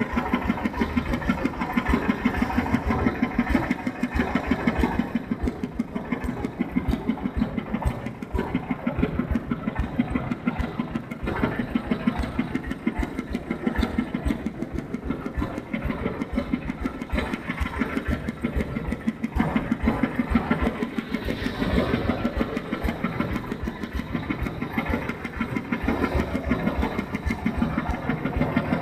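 Engine of a mobile rice-milling machine running steadily, with a rapid, even beat.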